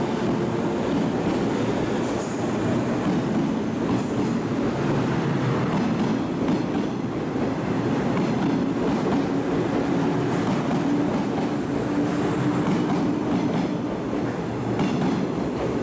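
Eight-car JR 115-series electric train running, a steady rumble of wheels on rail with brief high wheel squeals about two and four seconds in.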